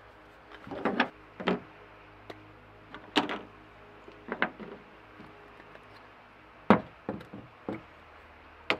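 Parts of an Outin portable espresso maker being handled: caps unscrewed and small cups and pieces set down on a hard tailgate drawer top, giving a string of sharp clicks and knocks about once a second, the loudest about two-thirds of the way through.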